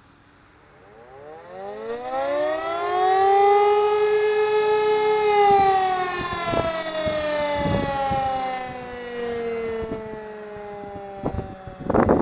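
Two or more E57 electro-mechanical motor sirens heard from afar sounding the short test signal. The pitch winds up from about a second in, holds briefly, then sinks slowly as the rotors run down, with one siren fainter and a little offset from the other. A few short low thumps come in the second half.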